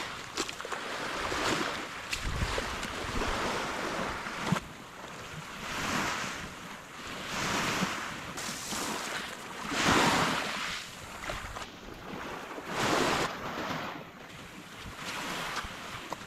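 Water washing in repeated swells, rising and falling about every two seconds, the strongest about ten seconds in, with wind buffeting the microphone.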